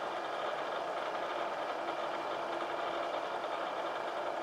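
Bridgeport vertical milling machine running, its spindle motor humming steadily without change.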